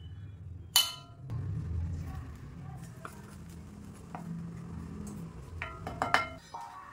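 Utensils working in a cast-iron kadai of boiling water: a sharp clink with a short ring about a second in as salt is tipped in, then a wooden spatula stirring, knocking against the pan a few times near the end. A low steady rumble of the boil runs underneath.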